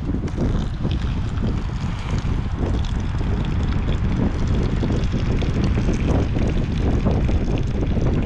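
Wind buffeting the microphone: a loud, uneven low rumble that runs on without a break.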